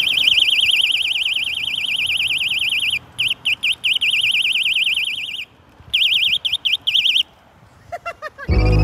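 Electronic bicycle horn on the handlebar sounding a fast warbling siren tone. It breaks into short stuttering bursts about three seconds in, stops about halfway through, then sounds again in short choppy pulses for over a second.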